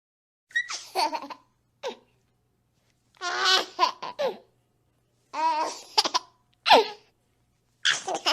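Baby giggling and laughing in about six short bursts of high, wavering laughter, with silent gaps between them.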